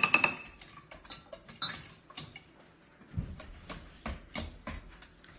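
A whisk clinking and tapping against the side of a mixing bowl as batter is stirred: a loud ringing clink at the start, then irregular clicks a few times a second.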